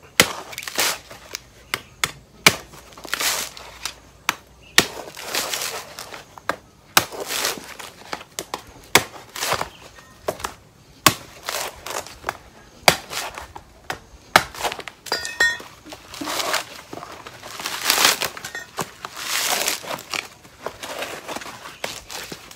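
Machete chopping into the dry husk of a mature coconut, with many sharp strikes, mixed with rasping and crackling as the fibrous husk is pried and torn away by hand.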